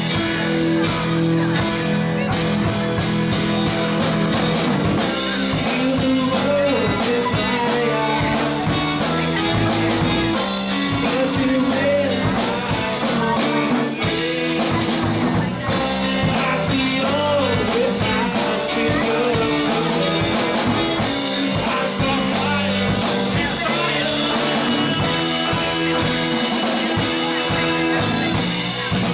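Live rock band playing: electric guitar, bass and drum kit, with a voice singing.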